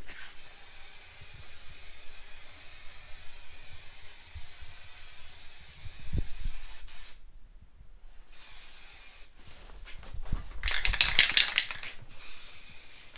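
Aerosol spray-paint can hissing in two long bursts onto an engine oil pan. In the second burst, about ten seconds in, the spray turns loud and crackly: the can is spitting paint, which the painters put down to the can being tilted.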